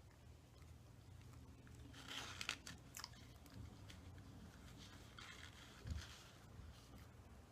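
Faint crunching and chewing of fried chicken, in two short bouts about two and five seconds in, over a low steady hum.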